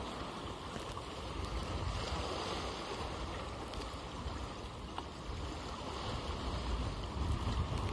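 Sea surf washing against the concrete tetrapods of a breakwater: a steady noise of waves with a fluctuating low rumble.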